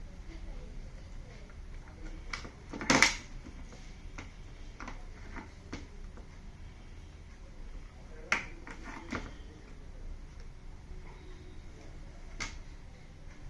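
Scattered sharp clicks and knocks of parts being handled during the repair of a TV, the loudest about three seconds in, with a few more near the middle and one near the end, over a low steady hum.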